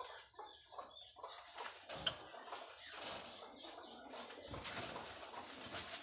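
White Java sparrows calling in their cage, a dense run of short chirps.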